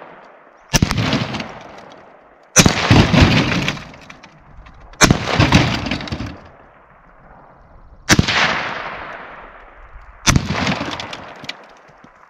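Five 5.56 NATO rifle shots with IMI 62-grain M855 steel-core penetrator ammunition striking a concrete cinder block from 50 yards. Each is a sharp crack followed by a long rolling echo, spaced about two to three seconds apart.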